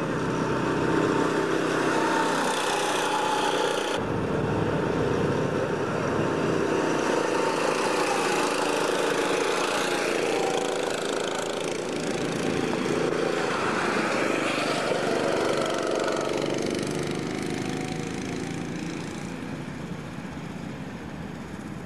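Small engine of a miniature car on a track, running with its pitch rising and falling as it drives round. The sound changes abruptly about four seconds in.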